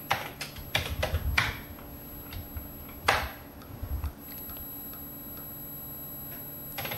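Keystrokes on a Commodore 64 keyboard typing a LOAD command: a quick run of key clicks in the first second and a half, a louder key press about three seconds in, and a few more near four seconds. A steady low hum follows.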